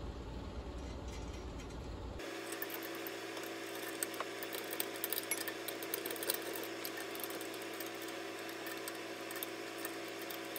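Hand tools clicking and clinking against steel bolts and the metal cart frame as nylon insert nuts are tightened down. There are many small irregular clicks, and a steady hum comes in about two seconds in.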